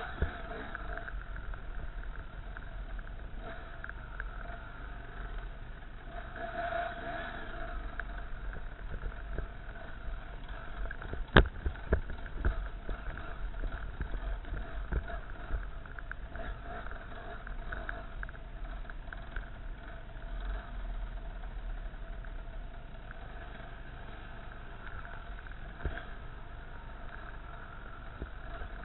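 Dirt bike engine running steadily as the bike rides a rough forest trail, with one sharp knock about eleven seconds in.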